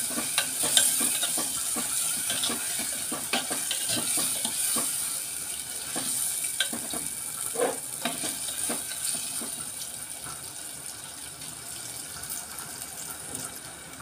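Prawns frying in oil with onion and spices in a pot: a steady sizzle with scattered clicks and scrapes of a metal spoon stirring, the clicks thinning out and the sizzle getting quieter in the second half.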